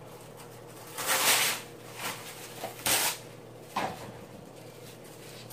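Plastic cling wrap being pulled off its roll and torn, in a few short crinkly bursts, the loudest about a second in and another near three seconds, with a light click near four seconds.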